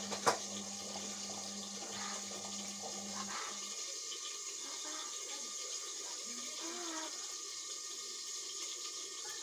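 Indesit washing machine with water rushing and splashing through it in a steady hiss. A low electrical hum from the machine cuts off about a third of the way in, and the water sound carries on.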